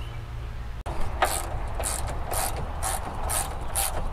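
Hand ratchet wrench clicking in short strokes about twice a second as it loosens a hood latch bolt.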